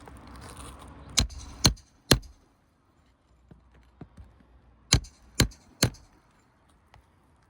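Hammer blows on a shingle roof: three sharp strikes about half a second apart, then a pause and three more, typical of hand-nailing roofing fasteners.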